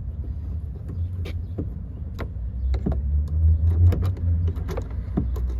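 Scattered sharp clicks and knocks of hand work on a car door panel, with a loud cluster about two-thirds of the way in, over a steady low rumble.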